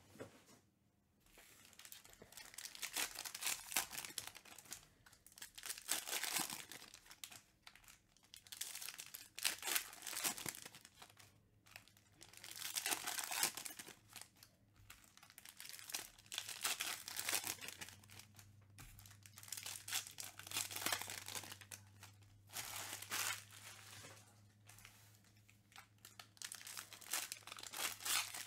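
Crinkling and tearing of the plastic foil wrappers of trading card packs as they are opened, coming in repeated waves of rustling a few seconds long.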